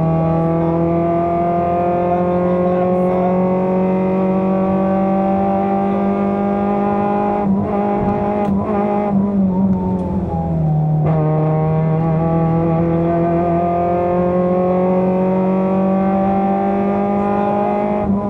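Fiat Seicento rally car's engine heard from inside the cabin under load, its revs climbing steadily in a long pull. Around the middle the note wavers for a few seconds with some sharp knocks, then the revs drop and climb again in another long pull.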